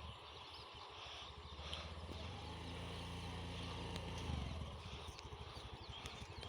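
A motor vehicle's engine humming, swelling in the middle and then fading, over faint outdoor background noise.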